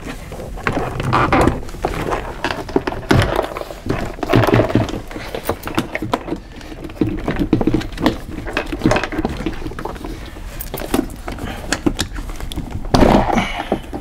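Plastic interior door panel of a car being lifted and worked off the door, giving irregular knocks, clicks and rattles.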